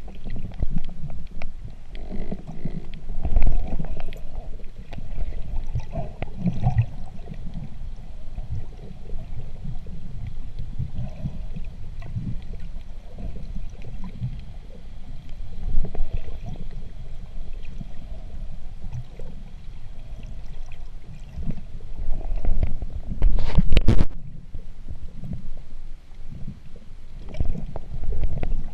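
Muffled underwater water noise heard through a camera's waterproof housing: a low, uneven rumble with surges as the diver swims. A brief louder rushing burst comes about 23 seconds in.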